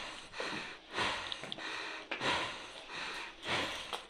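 Fast, heavy breathing close to the microphone, a quick series of rushing in-and-out breaths: a player out of breath from exertion in full gear.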